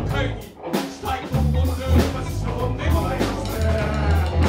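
Live rock band playing: a drum kit beating a steady rhythm under electric guitars and bass guitar.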